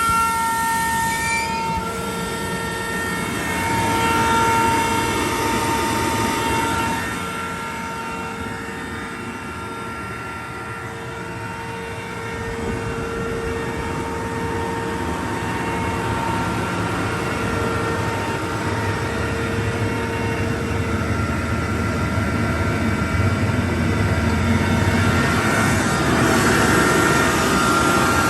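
Sullair LS100 40 hp rotary screw air compressor, driven by a 40 hp 460 V three-phase Toshiba electric motor, running just after start-up: a steady rumble with a high whine of several steady tones. It drops in level about seven seconds in, then slowly grows louder through the second half.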